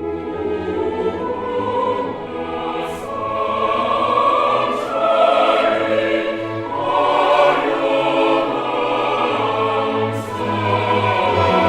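Orchestral music with a choir singing, slow and swelling.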